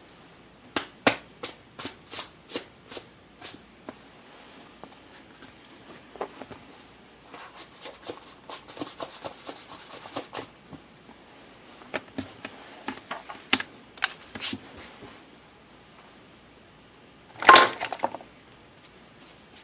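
A run of sharp clicks, about two a second, then scattered taps and knocks, with a louder clatter about seventeen seconds in.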